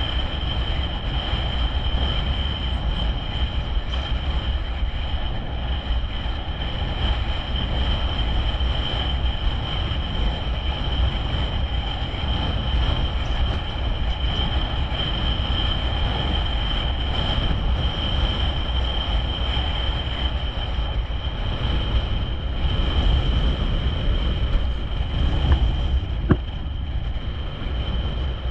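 Wind buffeting the action camera's microphone while wing foiling in a strong breeze: a steady low rumbling rush, with a thin high whistle held at one pitch throughout.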